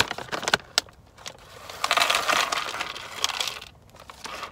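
Plastic snack bag of cheese crackers crinkling and rustling as it is handled. There are a few sharp crackles at the start, and the loudest crinkling comes from about two to three and a half seconds in.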